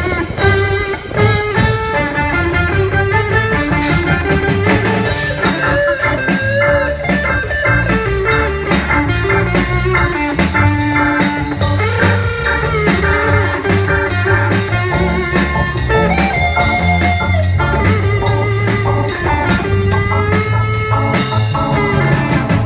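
Instrumental break of a pop song: a guitar melody over a drum kit and bass with a steady beat.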